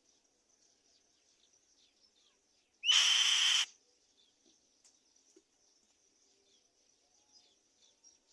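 One harsh, screeching call from a black-winged kite, lasting just under a second, about three seconds in, over faint, steady high chirping of insects or small birds.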